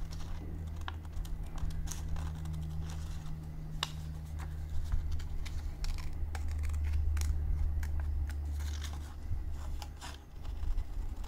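Scissors snipping through paper, with irregular short clicks and paper crinkling as the piece is cut and turned.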